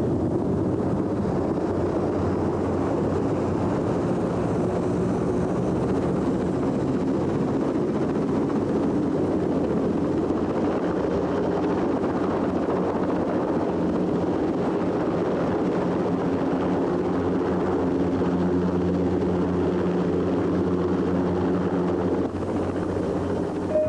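Helicopter in flight: a steady, continuous engine and rotor noise with a low hum that holds one pitch.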